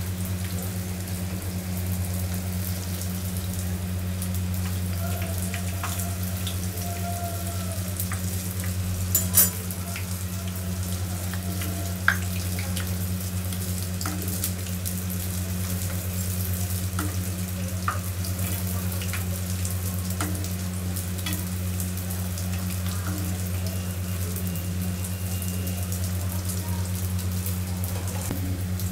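Battered pasta skewers deep-frying in hot oil in a kadai: a steady sizzle full of small crackles and pops, with a few sharp clicks, the loudest about nine seconds in. A steady low hum runs underneath.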